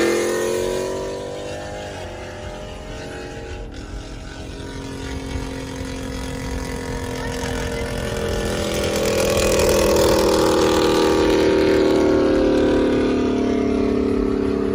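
Dodge Challenger V8 engines running hard at highway speed, heard from inside a car. The engine note eases off about two seconds in, climbs again from about seven seconds to a loud steady pull, and eases off near the end.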